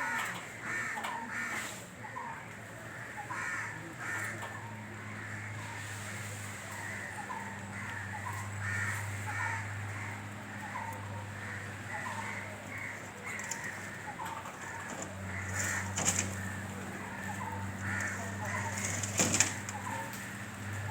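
Crows cawing over and over, with a low steady hum underneath and two sharp clicks a few seconds apart late on.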